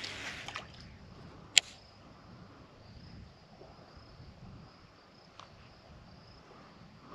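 A brief splash of water at the start, then one sharp click about a second and a half in, the loudest sound, and a fainter click later. Insects chirr faintly at a steady high pitch throughout.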